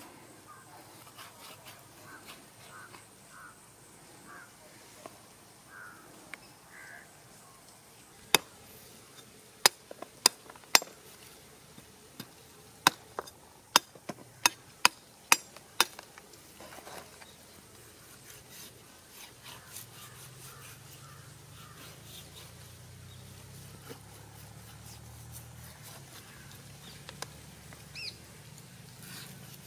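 A heavy chopping blade striking a goat's head on a wooden chopping stump: about a dozen sharp, loud chops over some eight seconds, starting about a third of the way in, with quieter cutting and scraping around them.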